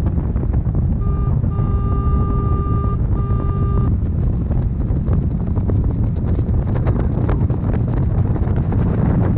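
Motorboat running under way with heavy wind buffeting the microphone. About a second in, a steady electronic beep tone sounds for about three seconds, broken twice.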